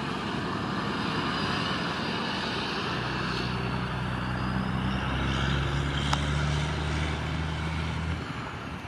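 A low, steady engine hum over outdoor background noise. The hum starts about three seconds in and cuts off shortly before the end.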